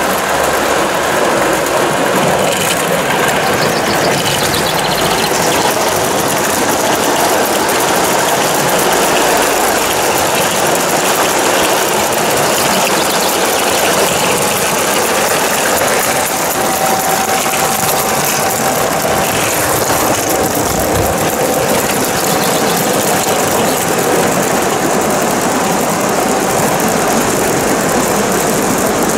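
Large-scale garden-railway model trains running: a steady rushing noise of locomotives and a goods train of wagons rolling on the track.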